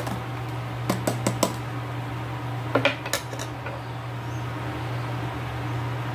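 A spoon stirring juice in a mug, clinking against the sides a few times in the first two seconds and a couple more times about three seconds in, over a steady low hum.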